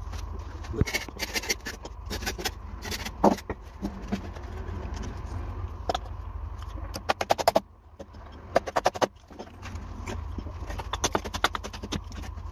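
Claw hammer knocking on a wooden formwork board: scattered single blows and a few quick runs of rapid taps, over a steady low rumble.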